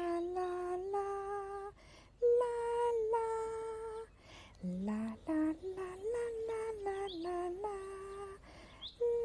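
Soft, lullaby-like music: a slow melody of long held notes, one note at a time.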